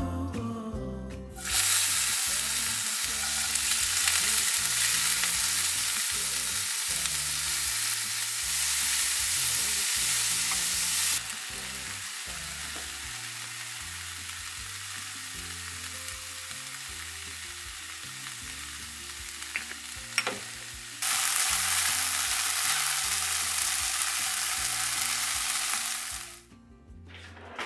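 Food sizzling in a frying pan: a steady hiss that cuts in sharply a second or so in, drops to a softer sizzle about halfway, and comes back loud again before stopping abruptly near the end. A short sharp click sounds about twenty seconds in.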